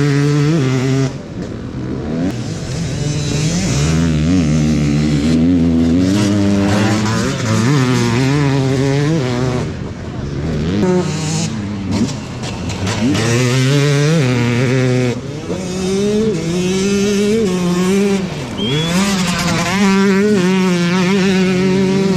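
Enduro dirt-bike engines revving hard, their pitch climbing through the gears and dropping again, over and over, as bikes pass one after another, sometimes two heard at once.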